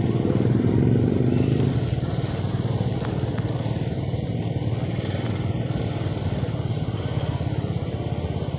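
Small motorcycle engine running steadily while riding along, a little louder for the first couple of seconds.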